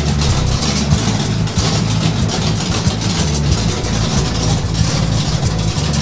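Freshly broken-in 410 cubic inch stroker V8 in a 1973 Ford Bronco, running steadily near idle.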